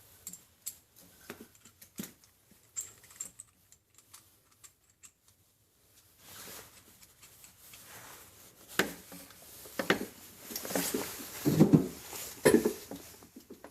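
Small clicks and taps of a beer-line hose nut and fittings being handled and screwed onto a kegerator tap. About six seconds in they give way to louder, denser handling knocks and rustling.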